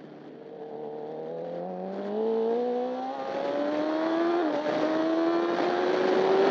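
Honda CBR1000RR superbike's inline-four engine accelerating hard, its pitch climbing steadily and growing louder, with brief hitches about three and four and a half seconds in as it shifts up. Wind rushes over the bike.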